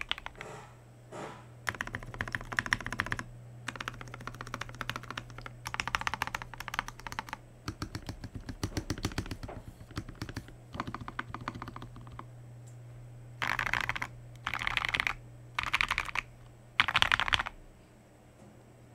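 Leaven K620 mechanical keyboard, with lubed and filmed KTT Wine Red linear switches, PBT Cherry-profile keycaps and tape and foam mods, being typed on in bursts of fast keystrokes. Near the end come three short, louder runs of rapid key presses.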